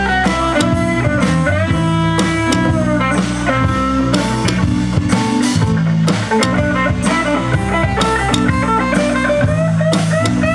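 Live blues-rock band playing an instrumental passage: electric guitar lead lines with bent notes over bass guitar, keyboard and drum kit.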